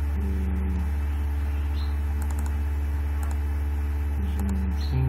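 Steady low electrical hum on the recording, with faint clicks of a computer keyboard and mouse.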